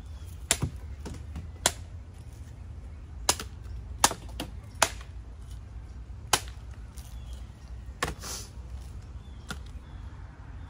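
A blade chopping into a young green coconut to open it: about ten sharp, irregularly spaced whacks.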